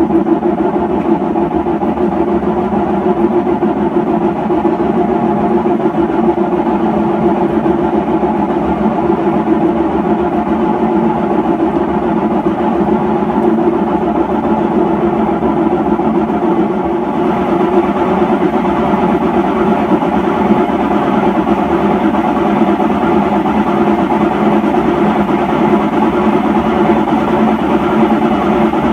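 Hotpoint top-load washing machine spinning its empty drum in spin test mode, with a steady roar from failed tub bearings. About two-thirds of the way through, the sound turns brighter as a higher hiss joins the roar.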